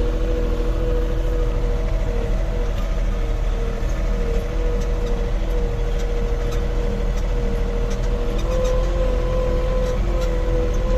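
A motor running steadily with an even droning hum, and light clicks in the second half.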